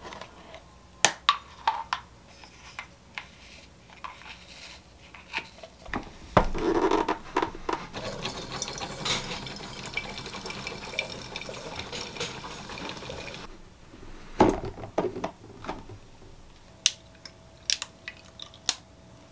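Clicks and clatter as the portafilter is fitted to a small Moritz espresso machine, then about seven seconds of the machine running as it brews espresso into a glass carafe, stopping abruptly. Near the end, knocks and clinks as milk is poured into a glass of ice.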